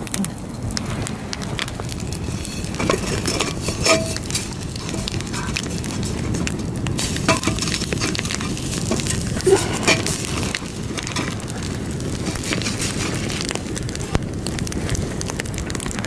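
Wood campfire burning, crackling with many sharp pops scattered through, a few of them louder.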